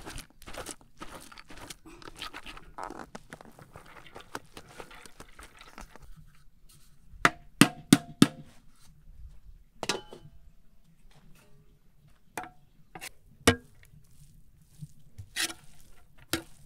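Cooked rice sliding and scraping out of a metal pan into an aluminium pot, then aluminium pot and lid clanking with a short ringing tone: four quick clanks about seven seconds in, and a few single knocks after that.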